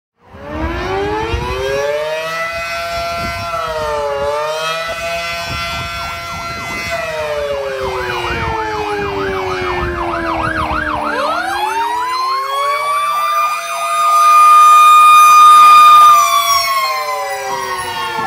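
Fire truck siren approaching: a wail winds up to a held pitch, then slowly coasts down while a fast yelp sounds over it. It winds up again to its loudest held tone as the truck nears, then drops in pitch near the end.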